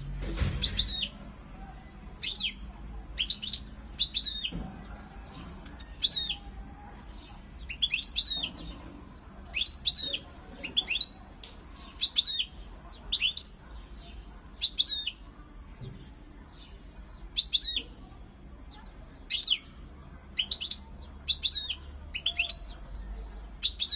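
European goldfinch calling in its courtship display: short, high, sharp chirps, each a quick falling note, in clusters of two or three about every second.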